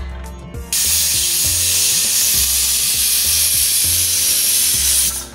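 Aluminium stovetop pressure cooker letting off steam past its weight valve: a loud, steady hiss that starts suddenly just under a second in and cuts off near the end. This whistle is the sign that the cooker has come up to pressure. Background music with a steady beat runs faintly underneath.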